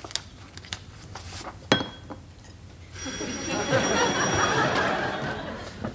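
A few sharp clicks of typewriter keys, then an electric doorbell rings continuously for about three seconds, stopping just before the end.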